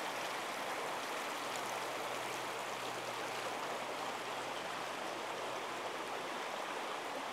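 Shallow brook running over rock ledges and riffles: a steady, even rush of water.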